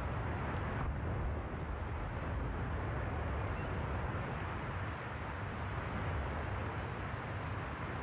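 Steady low rushing rumble of lake water churning with broken chunks of glacier ice just after a glacier's ice bridge has collapsed into it, with no distinct crashes.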